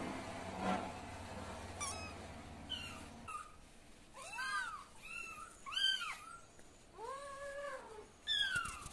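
A young kitten meowing over and over: about eight short, high-pitched mews, each rising and falling in pitch, with one longer, lower meow near the end. A brief noise comes just before the calls begin.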